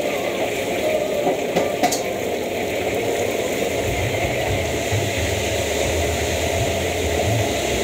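Food deep-frying in a large wok of hot oil: a steady bubbling sizzle over a gas wok burner. A low rumble joins about four seconds in, and there are a couple of light clicks near two seconds in.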